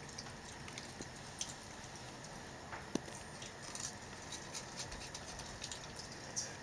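Raccoons feeding: irregular small crunches, clicks and light splashes as they chew crackers and kibble and paw at food in water bowls, with one sharper click about three seconds in.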